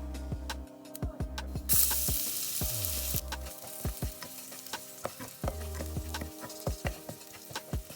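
Food frying in a hot pan while a utensil stirs it, with repeated clicks and taps of the utensil against the pan. About two seconds in, the sizzle turns loud for a second or so and then settles back.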